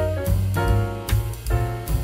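Instrumental background music in a light jazz style, with piano, a strong bass line and drum kit keeping a steady beat.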